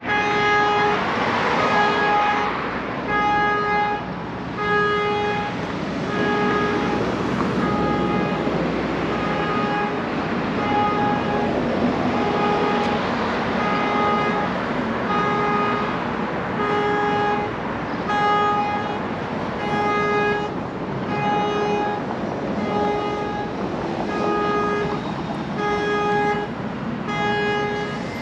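Background music: a pitched electronic note pulsing in a steady beat about once a second over a dense backing.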